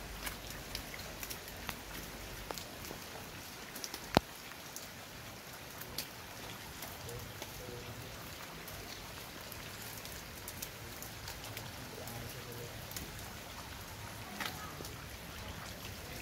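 Rain falling steadily on paving and a pool, an even hiss dotted with the clicks of single drops. One sharp click stands out about four seconds in.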